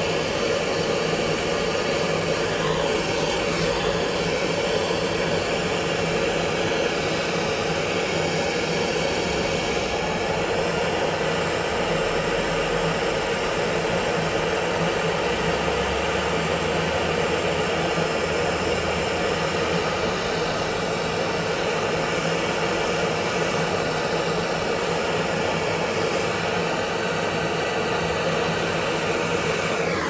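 Gas torch burning with a steady, unbroken rushing noise, heating the copper boiler parts for silver soldering.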